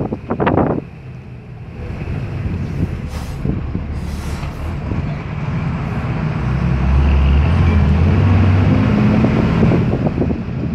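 Engine and road noise of a moving vehicle, heard from on board: a steady low drone that grows louder from about six seconds in. Two short hisses come a few seconds in.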